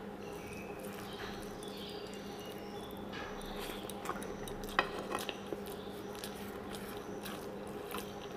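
Eating sounds: fingers mixing rice on a terracotta plate and chewing, with a few small clicks and taps around the middle. A steady low hum runs underneath.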